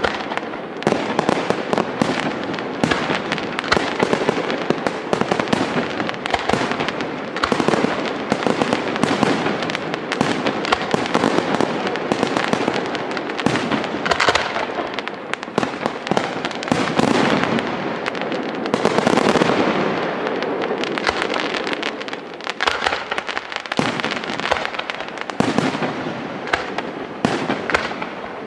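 Aerial fireworks display: a dense, unbroken barrage of shell bursts, bangs coming several a second with crackling in between.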